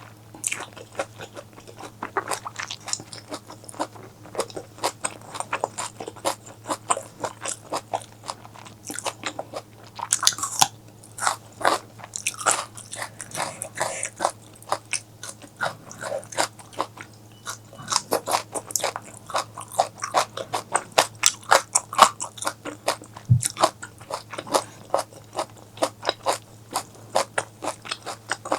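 Close-miked mukbang eating: a person biting and chewing food with rapid, crunching, wet mouth sounds, several a second throughout. A faint steady low hum runs underneath.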